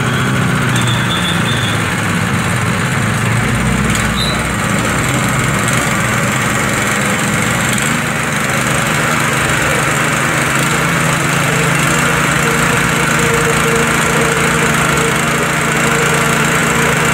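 Honda GX160 single-cylinder four-stroke engine on a WB30XN 3-inch water pump running steadily just after a pull start. Its note shifts a little about four seconds in and again around eight seconds in.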